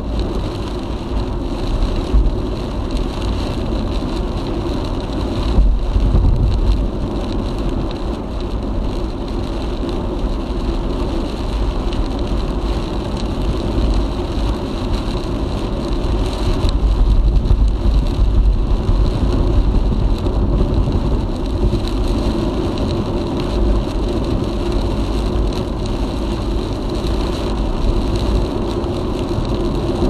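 Car driving on an expressway in typhoon weather: steady road and engine noise with wind and rain on the car. A heavy low rumble swells about five seconds in and again in the middle.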